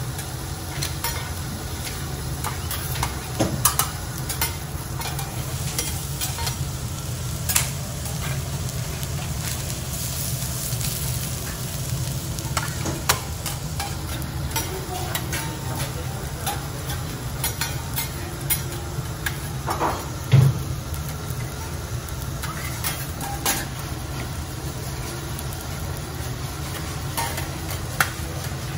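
Food sizzling on a teppanyaki steel griddle, with metal spatulas scraping and clacking on the plate now and then, the sharpest clack about twenty seconds in. A steady low hum runs underneath.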